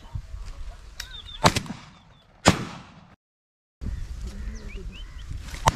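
Shotgun shots at ducks overhead: two loud shots about a second apart, then after a brief dropout in the sound a third shot near the end, each with a short echoing tail. Short bird calls are heard between the shots.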